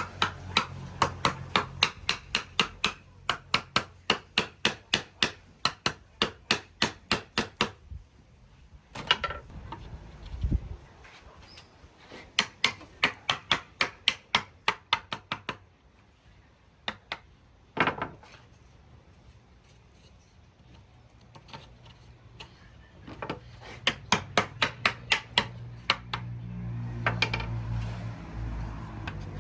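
A hammer tapping on wood in quick, even strokes, about four a second, in several runs with pauses between, and one heavier single knock partway through.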